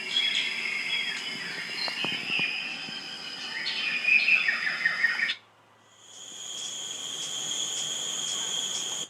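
Recorded animal sound effects played back: about five seconds of busy chirping calls, then after a short break a steady, high, pulsing insect trill like crickets.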